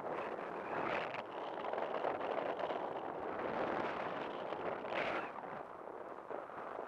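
Wind rushing and buffeting over a helmet-mounted camera's microphone as a skydiver descends under an open parachute canopy, with stronger gusts about one second and five seconds in.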